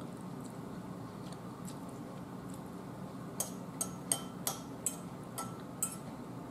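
A metal fork clinks and scrapes against a bowl in about seven sharp, slightly ringing clicks over two and a half seconds, starting about halfway through. A steady low room hum runs underneath.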